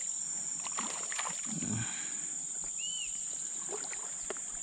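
Steady high-pitched drone of insects, with small splashes and sloshing of shallow river water and a few light clicks; a single short chirp about three seconds in.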